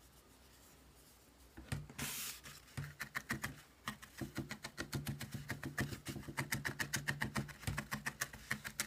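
Felting needle stabbing again and again through wool into a foam felting pad: a fast, even run of soft pokes, about six a second, that starts a little under two seconds in.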